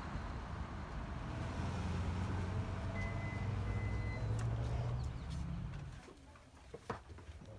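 Outdoor parking-lot ambience: a steady low rumble of vehicles, with a short double electronic beep in the middle. About six seconds in, the sound drops to much quieter indoor room tone, with a few light knocks.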